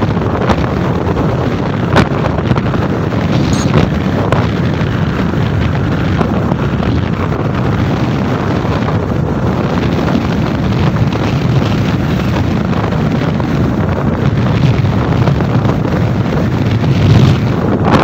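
Steady wind noise on the microphone of a moving vehicle, with a low rumble of the vehicle and road beneath it. A couple of short knocks come about two and three and a half seconds in.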